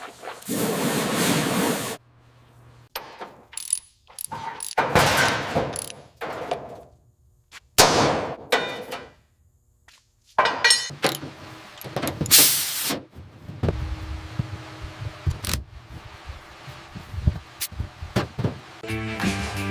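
Metal bodywork noises on an old car: several separate hissing or grinding bursts and sharp metal clanks. Music comes in near the end.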